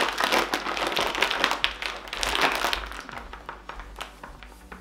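Plastic crisp packet crinkling and crackling as hands grip and pull at its sealed top, straining to pull it open without success. The crinkling thins out and grows quieter about three seconds in.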